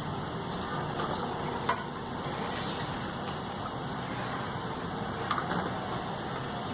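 Masala vadas of coarse-ground chana dal deep-frying in hot oil: a steady sizzle, with two light clicks.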